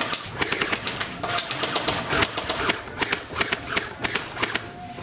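Airsoft guns firing around the field: bursts of rapid clicking snaps, irregular and overlapping.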